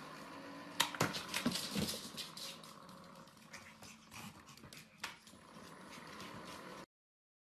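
A Pomeranian playing with an automatic ball-launcher toy on a hard floor: sharp clicks and knocks of the launcher and the ball about a second in and again near five seconds, with the dog's movement between them. The sound cuts off suddenly about seven seconds in.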